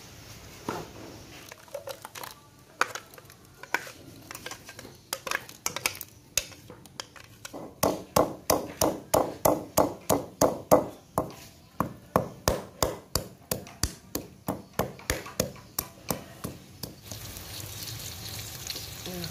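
Stone pestle pounding lemongrass stalks against a stone mortar, bruising them: scattered knocks at first, then a steady run of about three strikes a second. Near the end the spice paste starts sizzling in hot oil in a wok.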